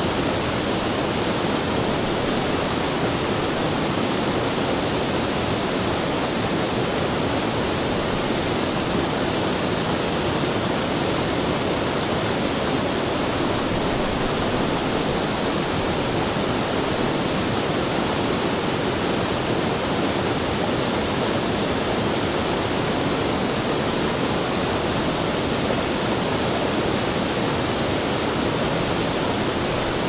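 Waterfall: a steady, unbroken rush of falling water, with no change in level.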